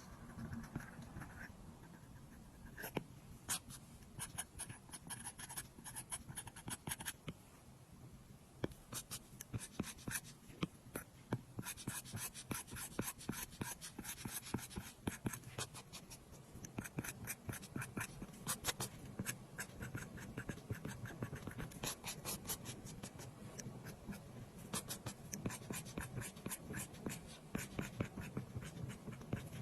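Apple Pencil tip tapping and stroking on an iPad's glass screen while drawing and colouring: quick runs of light clicks with short pauses between them.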